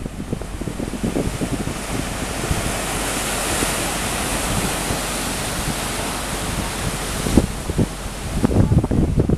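Wind buffeting the microphone in low, gusty rumbles near the start and again near the end, with a steady rushing hiss in between that cuts off suddenly about three quarters of the way through.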